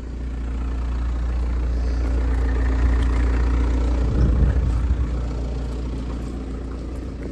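A car driving past on a wet road: its engine and tyre noise swell to a peak about four seconds in, then fade. A steady low hum runs underneath.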